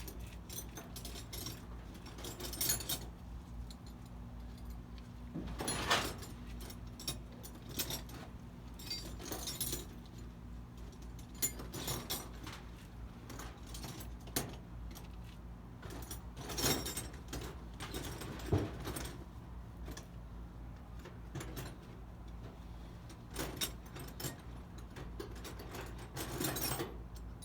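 Metal tools and parts clinking and scraping as they are handled, in irregular bursts, over a steady low hum.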